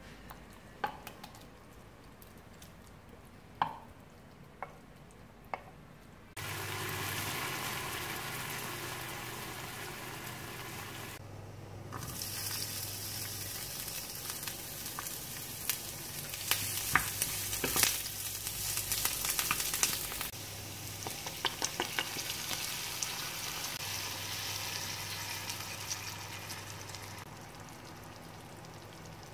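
Sliced red onions sizzling in hot oil in a nonstick frying pan, with a crackly spell in the middle that eases off near the end. Before the sizzling starts, about six seconds in, there are a few sharp taps and clinks.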